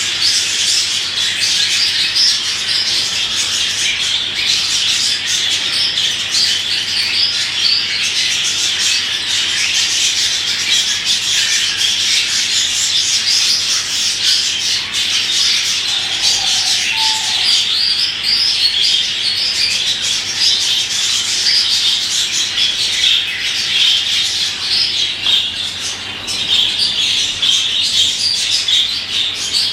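Budgerigar warbling and chattering continuously in a fast, busy stream of high chirps and squawks, with a brief lower note about halfway through.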